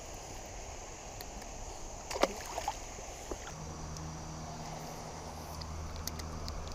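Water lapping at a kayak hull, with a short cluster of sharp knocks a little over two seconds in. A low steady hum comes in about halfway through.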